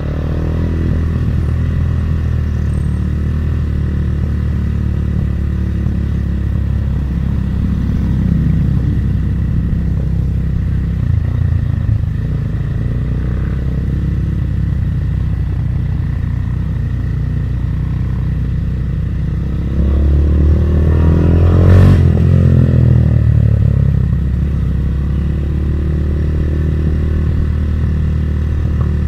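GPR 250 motorcycle's engine running steadily, growing louder for a few seconds about twenty seconds in, with a short click near the loudest point.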